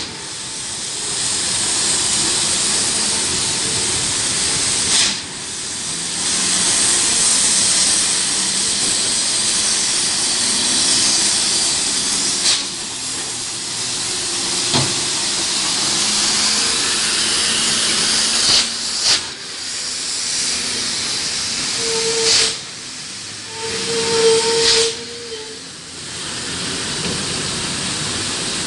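Heavy diesel trucks coming slowly down a wet hairpin. A steady hiss of tyres on the wet road runs over the low engine sound, with several short sharp bursts. A horn sounds briefly twice near the end.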